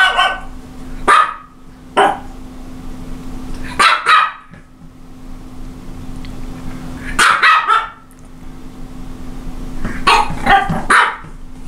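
Japanese Chin, a small toy dog, barking: short sharp barks, singly or in quick pairs, repeating every one to three seconds.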